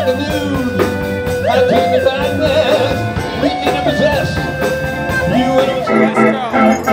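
Live rock band playing, with a steady drum beat under a melody that slides up and down in pitch. Near the end, held organ chords take over.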